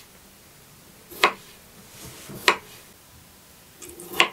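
Chef's knife slicing through pickled cucumbers and knocking on a wooden cutting board three times, a little over a second apart.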